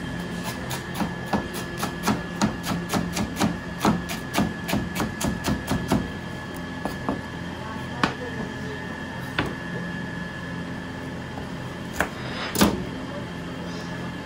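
Large kitchen knife chopping cabbage on a thick plastic cutting board, the blade knocking the board with each cut. There is a quick run of chops at about four a second for the first six seconds, then scattered strokes and one heavier knock near the end, over a steady hum.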